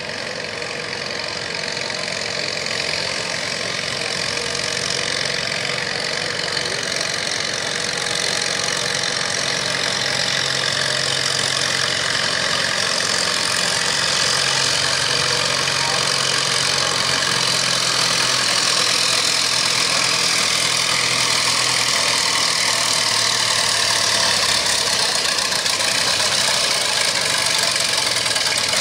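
Classic pulling tractor's engine running hard under full load as it drags a weight-transfer sled, a steady engine note that grows louder as it nears.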